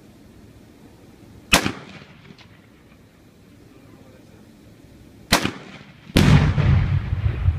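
Two rifle shots from a Rock River AR, each a sharp crack with a short echo, about four seconds apart. Less than a second after the second shot, the Tannerite charge at about 170 yards detonates with a deep boom that rolls on in a long rumble.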